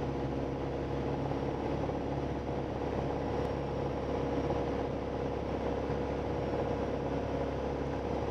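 Piper PA-28-180's four-cylinder Lycoming engine running steadily in cruise flight. It is a low, even drone with a few held tones and no change in power.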